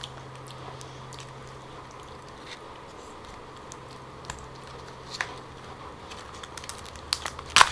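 Faint, sparse clicks and taps of fingers handling the shells of sauce-coated cooked lobster on a platter, with a sharper click near the end. A steady low hum runs underneath.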